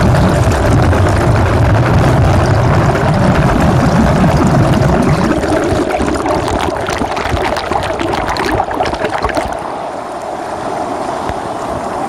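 Mountain stream water rushing over a pebble bed, heard from a camera held underwater in the current: a loud, even churning rush with a deep rumble through the first half. From about six seconds in, dense crackling of bubbles joins it, and near the end the rush turns thinner and quieter.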